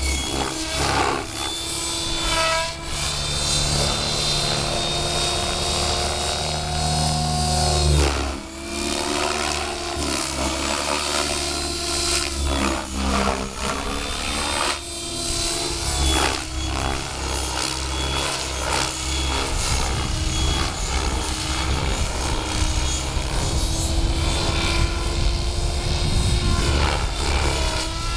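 Gaui X7 electric RC helicopter in flight: the motor's whine and the main rotor's buzz run steadily, with the pitch swinging up and down as it manoeuvres.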